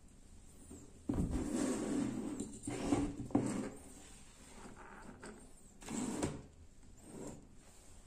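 Small speakers being slid across and set down on a plastic cutting mat: scraping for a couple of seconds from about a second in, with two sharp knocks near the middle and a shorter scrape later.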